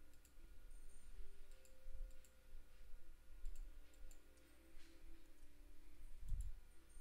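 Faint, scattered clicks of a computer mouse and keyboard over a low steady hum, with one soft low thump near the end.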